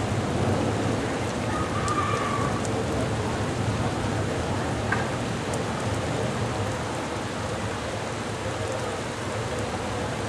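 Heavy rain pouring down in a thunderstorm, a steady dense hiss with a few sharp ticks of drops striking nearby.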